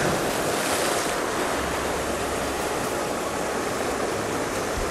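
Sea waves washing and breaking against rocks, a steady surf noise.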